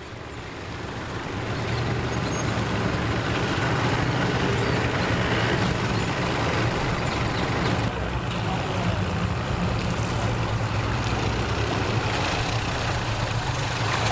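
Mercury outboard motor on a Sun Tracker pontoon boat running at low speed: a steady engine hum that grows over the first couple of seconds and then holds level.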